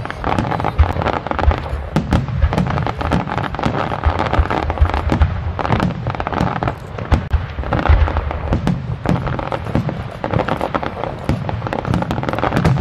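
Aerial fireworks shells bursting in a rapid, unbroken barrage of booms and sharp pops.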